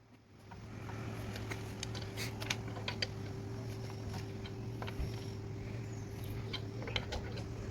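A steady machine hum with a fainter higher tone, with scattered light clicks and ticks throughout.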